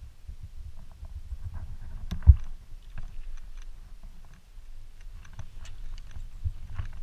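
Honda CRF250R dirt bike riding slowly over a rocky dirt trail: a low rumble with irregular clicks and rattles, and one loud knock a little over two seconds in.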